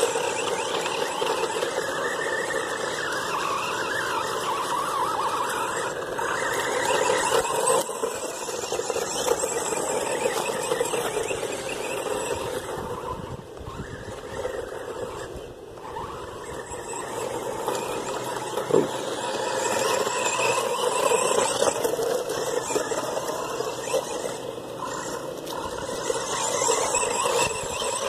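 Electric motor and gears of a 1/12-scale two-wheel-drive RC truck whining as it is driven, the pitch rising and falling with the throttle. It fades for a few seconds around the middle.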